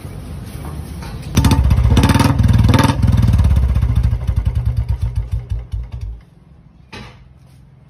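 Royal Enfield Bullet's single-cylinder engine heard through its stock chrome silencer, without the rubber cap: idling, revved hard about a second and a half in, then its beats slow and die away about six seconds in. A short clatter about seven seconds in.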